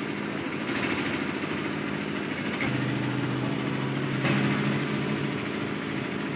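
An engine running steadily at idle, with a low, even drone. A few light knocks sound over it.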